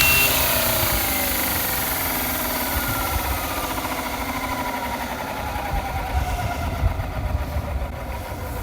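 Electric motor and rotors of a FlyWing MH-60T Jayhawk RC helicopter spinning down, its whine falling steadily in pitch and fading as the rotors slow after the throttle is cut.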